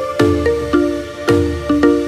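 Instrumental background music with a steady beat and held chords.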